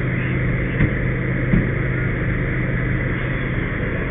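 Fire engine running steadily with a low hum, with two light knocks about one and one and a half seconds in.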